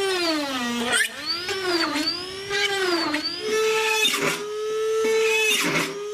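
Homemade drill powered by a 2450KV brushless drone motor, whining at high speed. Its pitch dips and recovers several times, then holds steadier, with short rasping bursts about four and six seconds in.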